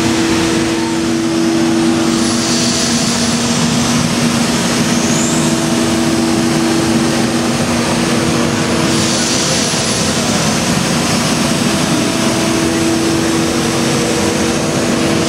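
C.R. Onsrud 5-axis CNC router running steadily as its spindle and ball-nose cutter machine a curved surface in a wood block, a loud steady rush with a constant hum at a couple of pitches. A brighter hiss comes in twice, a couple of seconds in and again about nine seconds in.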